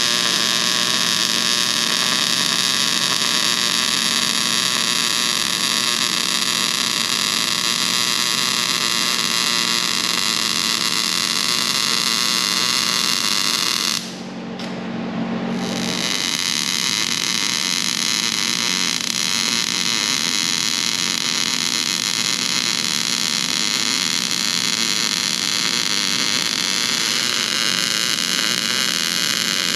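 Electric arc welding on steel plate: a steady crackling hiss with a low machine hum underneath. The arc breaks off about fourteen seconds in and is struck again about two seconds later.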